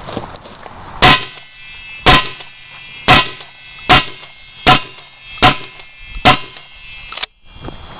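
Seven shotgun shots fired in quick succession, about one a second and speeding up slightly, each a sharp crack with a metallic ring lingering between shots.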